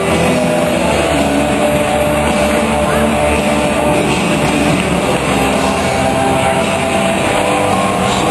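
Music played over an arena's sound system: held notes above a dense, steady roar.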